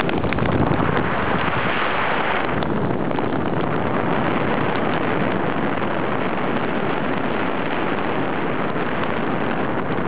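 Stormy sea surf breaking against a seawall: a steady roar of waves and spray mixed with wind buffeting the microphone, swelling briefly about a second in.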